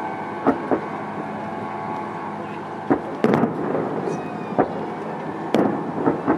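Aerial firework shells launching and bursting: a series of about eight sharp bangs at irregular intervals over a steady background murmur.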